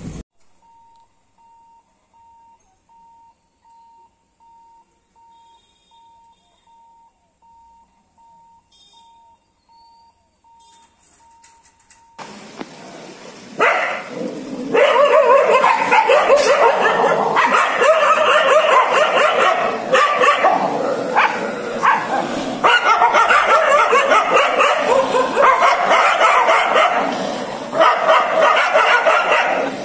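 A faint electronic beep repeats at a steady rate, about one and a half per second, for roughly twelve seconds. Then loud, continuous barking and yelping from dogs starts and carries on with hardly a break.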